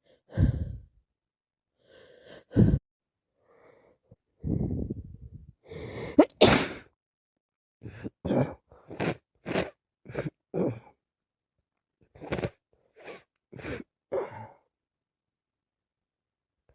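A woman with a cold sneezing over and over: about a dozen short, sudden sneezes. The loudest comes about six seconds in, and a quick run of them follows between eight and eleven seconds.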